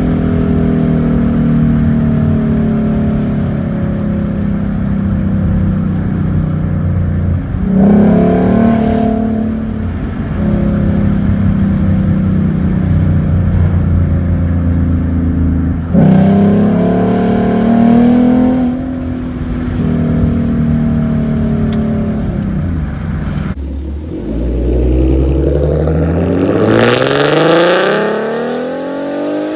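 2014 Mustang's 3.7-litre V6 breathing through a Roush cold air intake, running steadily with two short throttle blips about eight and sixteen seconds in. Near the end it revs up in one long climb in pitch, then falls back.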